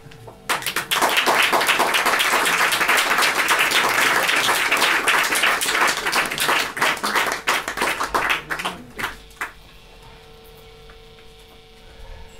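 Audience applauding, starting about half a second in and dying away after about nine seconds, leaving a faint steady electrical hum.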